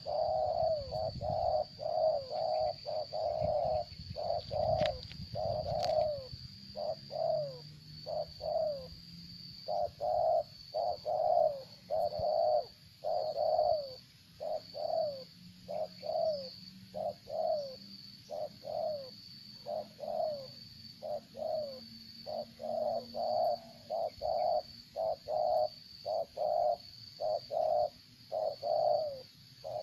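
A bird calling continuously in short, falling notes repeated about twice a second, with a thin, high pulsing note sounding steadily behind.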